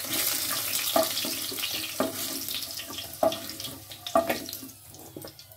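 Hot oil sizzling in a wok as fried pieces of taro and sweet potato are lifted out one by one with a wooden spatula, with short clacks of the spatula about once a second. The sizzle dies down toward the end as the pan empties.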